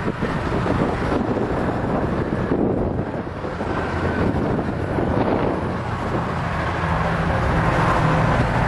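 Wind buffeting the microphone over the steady running of a vehicle engine, with a low hum growing clearer near the end.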